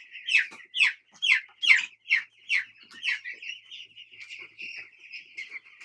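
A flock of young chicks peeping: short, high, falling peeps, loud and about two a second for the first three seconds, then a denser, fainter chorus of many birds.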